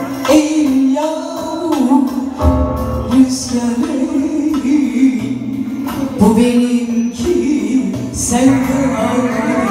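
Live music: a woman singing a Turkish song into a microphone, backed by a small band with guitar and drum.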